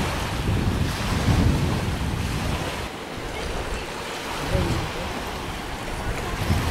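Wind buffeting the microphone in gusts, over small waves washing onto a sandy shore. The gusts ease off about three seconds in.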